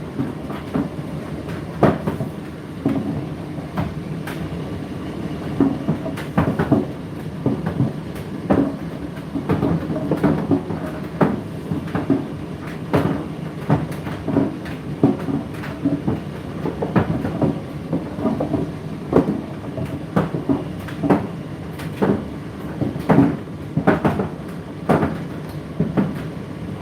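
Indesit IDC8T3 condenser tumble dryer running mid-cycle: a steady hum from the turning drum, with irregular knocks about once a second as the load tumbles.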